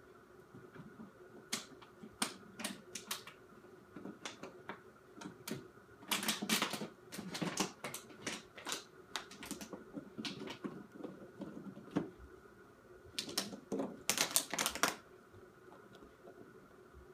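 A puppy chewing and gnawing on something, making irregular sharp clicks and crackles, with two longer stretches of crackling about six seconds in and again about thirteen seconds in.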